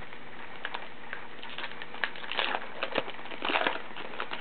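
Baseball card pack wrapper crinkling and tearing open, with the cards inside rustling and clicking as they are handled; a run of crackly rustles comes about two seconds in and the loudest about three and a half seconds in.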